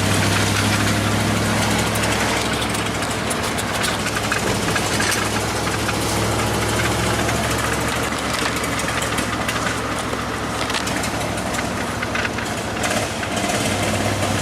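Steady engine drone and road noise inside a moving vehicle's cab, with a constant low hum.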